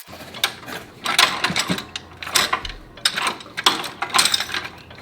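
Hand tools working the metal mounting hardware of a mower striping-roller bracket: short bursts of ratchet-like clicking, a burst about every half second to second.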